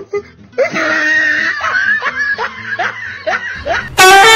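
A person laughing in a quick run of short snickers, then a car horn blares loudly near the end.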